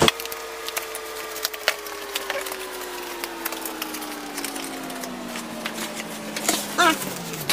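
Cardboard packaging being handled and opened: scattered clicks, scrapes and rustles of the box. Under them runs a steady hum that slides slowly down in pitch throughout.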